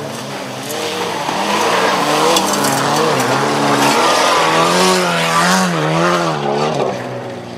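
Volkswagen Golf rallycross car's engine revving up and down as it slides through a loose gravel turn, with the scrabbling noise of tyres on gravel. It is loudest in the middle as the car passes close, and falls away near the end.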